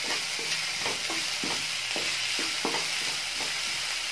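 Sliced onions, capsicum and green chillies sizzling in oil in a non-stick kadai while a spatula stirs them, each stroke a short scrape against the pan, about two or three a second. The onions are being sautéed until soft.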